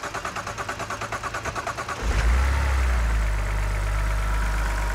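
BMW 330i E90 straight-six being started: the starter cranks in rapid, even pulses for about two seconds, then the engine catches and runs steadily. It runs lumpy because its new Valvetronic servo motor has not calibrated itself.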